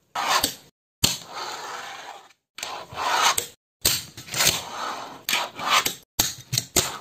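Fingerboard tricks on a metal desk stapler: sharp clacks of the tail popping and the board landing, the small wheels rolling on the table, and the board scraping along the stapler. The clacks come in several short runs, with a quick cluster of them in the last couple of seconds.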